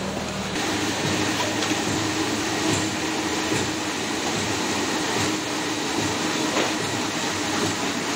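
A 5 ft spindleless rotary veneer peeling lathe running as it peels a log into veneer. It makes a steady, dense mechanical noise with faint scattered knocks, and a faint steady hum joins about half a second in.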